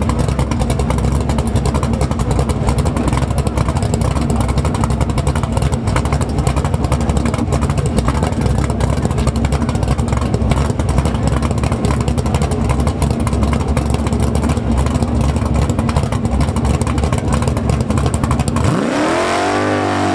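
Chevair drag car's engine running loudly and roughly at idle on the start line. Near the end the revs climb sharply as it spins its rear tyres in a burnout and pulls away.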